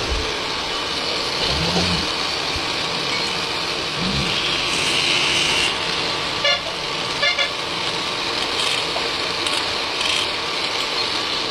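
Handheld straight grinder running steadily, its disc buffing the rubber of a truck tyre to rough up the damaged area for a patch. A few short rattling scrapes come about six and seven seconds in.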